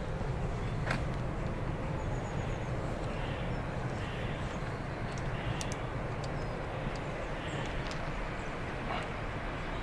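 Steady low rumble of a train running along the line, with a few faint clicks.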